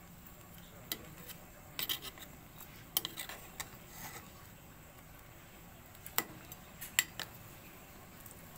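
Metal cooking utensil clinking and scraping against a metal pot of boiling sinigang broth as the shrimp and vegetables are moved about, in irregular clusters of sharp clinks, loudest around three seconds in and near seven seconds.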